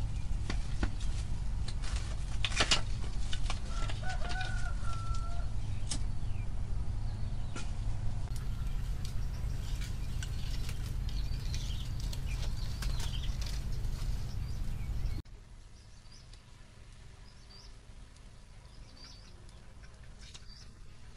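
Dry grass and twigs rustling and snapping with sharp clicks as kindling is handled, over a low rumble. A short pitched call, likely a chicken, comes about four seconds in, and the sound drops abruptly to a much quieter stretch with faint chirps about fifteen seconds in.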